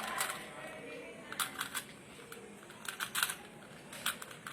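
Plastic Rubik's cube being turned quickly by hand: short runs of clicks and clacks as the layers snap round, coming in small clusters about once a second.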